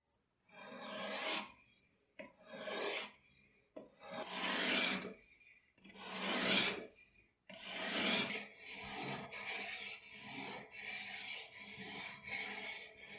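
Whetstone on a guided-rod sharpener stroked along the edge of a steel guillotine blade, sharpening it with a gritty scraping. It starts with four long, slow strokes, then from about halfway goes into quicker short strokes, about three every two seconds.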